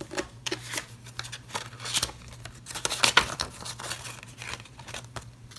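Paper banknotes rustling and crinkling as they are handled and slipped into a clear plastic cash envelope, in irregular handling noises.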